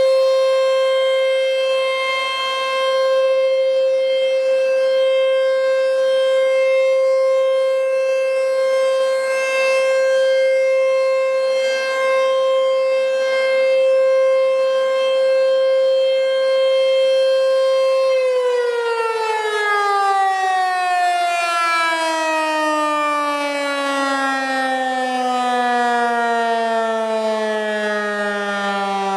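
American Signal T-128 electromechanical warning siren holding a loud, steady tone. About eighteen seconds in, the pitch begins to fall smoothly as the siren winds down, ending much lower.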